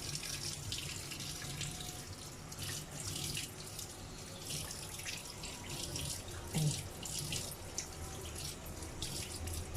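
Kitchen tap running in a thin trickle into the sink, water splashing as a fish is rinsed and cleaned under it by hand.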